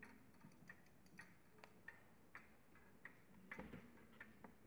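Pendulum movement of an 1882 Ansonia wall clock ticking faintly and evenly, about two ticks a second, running again in beat after being set back level and restarted. A soft low bump about three and a half seconds in.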